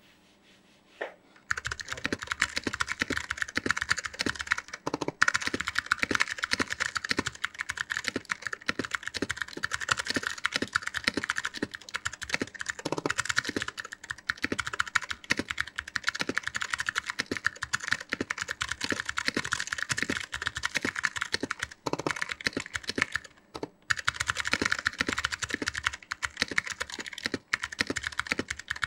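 Fast typing on a 60% mechanical keyboard with clicky SKCM Blue Alps switches: a dense, continuous stream of sharp keystroke clicks. It starts about a second and a half in, and there are two brief pauses about three-quarters of the way through.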